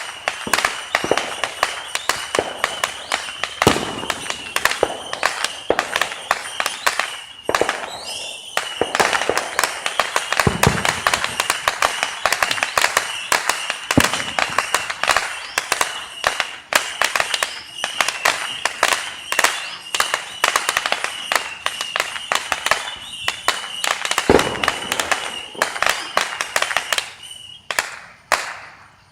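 Neighborhood fireworks going off in a dense, rapid crackle of pops, with several heavier booms among them and a steady high whistle running underneath. The barrage stops suddenly near the end.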